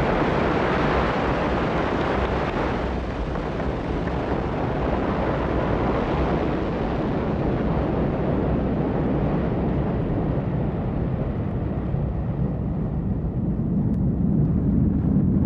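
Ariane 5 rocket's two solid boosters and Vulcain main engine at liftoff: a steady, loud rocket noise. Its higher part fades as the rocket climbs away, leaving a deep rumble.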